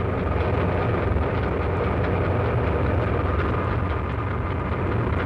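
SNCF 060 DB diesel-electric locomotive heard from inside its cab while pulling a train: a steady low engine rumble with a faint constant high tone above it. The controller is back on the first notch at about 45 km/h.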